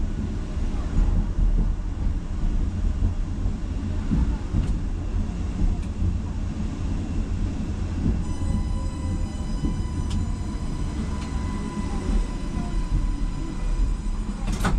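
Tram running along its rails: a steady low rumble with a few sharp clicks, the loudest near the end. About eight seconds in, a steady high whine joins.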